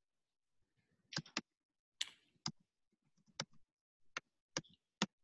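Slow, irregular computer keyboard keystrokes, about eight separate clicks spread across a few seconds, typed while notes are entered into a shared document.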